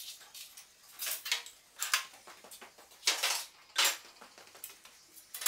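Small metal tools and workshop odds and ends being picked up and set down while clearing a bench: about half a dozen separate clinks and clatters at irregular intervals.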